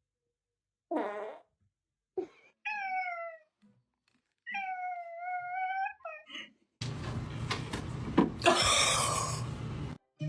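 A cat meowing several times, one meow drawn out for over a second, followed by about three seconds of loud, rough, rasping noise that cuts off suddenly.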